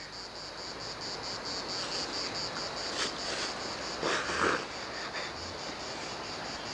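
Insects chirping in a steady, even rhythm of about four or five pulses a second.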